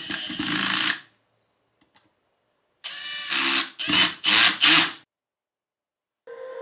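Cordless drill running in short bursts with its bit in a 3D printed plastic housing: one burst of about a second, a pause, then a run of several quick bursts.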